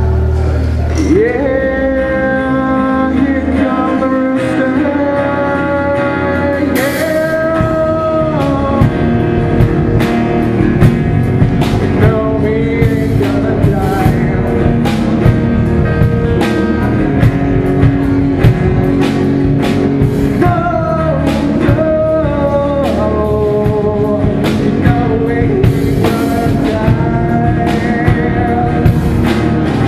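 A small rock band playing live: a man singing over acoustic guitar, electric guitar and bass guitar. Drum hits come in steadily about eight seconds in and keep a regular beat.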